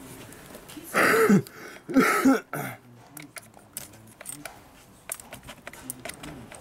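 Two short, loud vocal sounds from a person about a second apart, followed by light scattered clicks and ticks of hands working the plastic pad mount and housing of a Festool Rotex RO150 sander.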